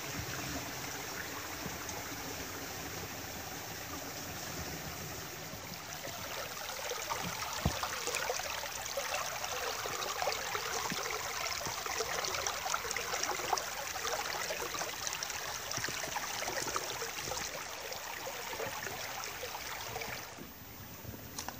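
Shallow creek water running and rippling over rocks, a steady rushing that grows louder about a quarter of the way in and falls away sharply near the end. A single light knock sounds about a third of the way in.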